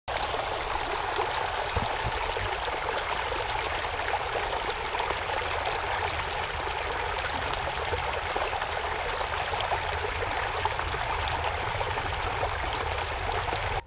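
Small shallow stream running over rocks, heard up close: a steady sound of water flowing and trickling.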